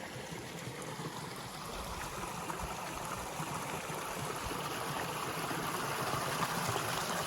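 Small mountain creek running over rocks: a steady rushing and trickling of water that grows slowly louder.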